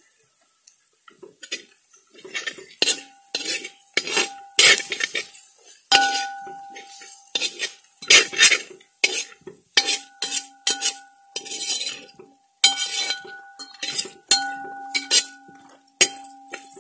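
Perforated steel ladle scraping and knocking against a large metal uruli as onions and spice powders are stirred, a quick run of rasping strokes starting about a second in. Many knocks leave the pan ringing with a steady tone.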